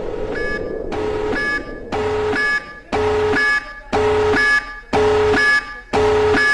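Emergency alert alarm: a pulsing electronic tone of several pitches sounding together, repeating about once a second with short gaps between pulses.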